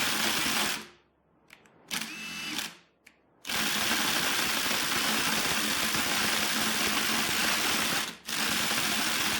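A Ryobi 18-volt and a Kobalt 24-volt brushless impact driver hammering together at top speed in a run-until-failure test. The hammering stops about a second in, comes back briefly, stops again, then runs on steadily from about three and a half seconds with a short break near the end.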